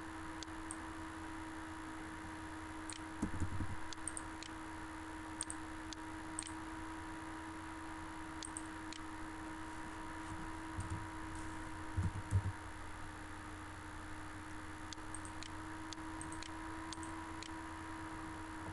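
Steady electrical hum and hiss of a desktop recording setup, with scattered faint clicks from a computer mouse and keyboard. Soft low thumps come about three seconds in and again about twelve seconds in.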